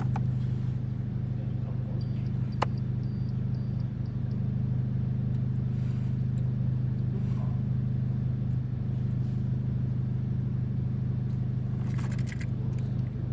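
Engine of a 1992 VW Voyage GL 1.8 during a hard start, making a steady, even low drone, with a sharp click about two and a half seconds in and a few light crackles near the end.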